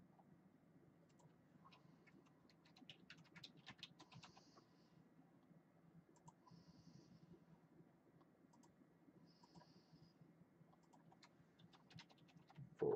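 Faint computer keyboard typing and mouse clicks, scattered keystrokes that come thickest about three to four seconds in. A short, louder sound right at the end.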